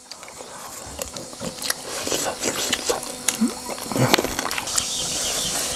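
People eating at a table: chewing, with scattered light clicks of chopsticks against bowls and a steel pot.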